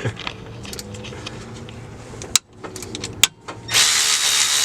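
Shop work under a truck: a steady low mechanical hum, two sharp metallic clicks past the middle, then a loud steady hiss with a thin high whine setting in near the end, like a pneumatic tool or air line running.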